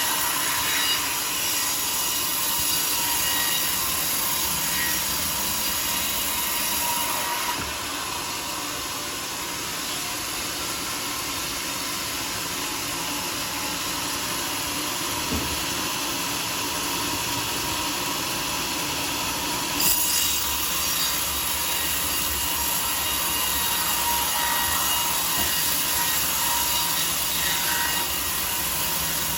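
Sawmill saw cutting through a teak log, a steady loud sawing noise. Its high hiss drops away for a stretch partway through and comes back sharply.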